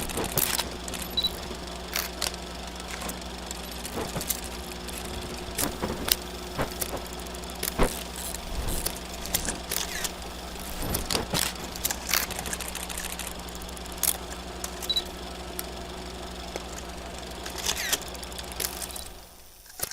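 Vintage 8mm film sound effect: a steady low hum and hiss with irregular crackles and pops, fading out near the end.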